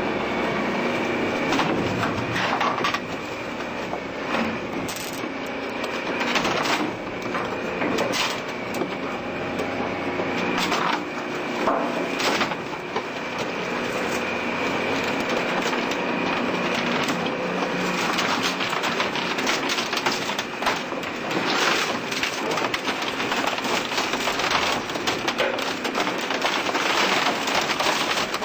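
Industrial auger shredder chewing up a wooden cable reel: continuous grinding and crunching, broken by frequent sharp cracks and snaps of splintering wood, over a steady high whine from the machine.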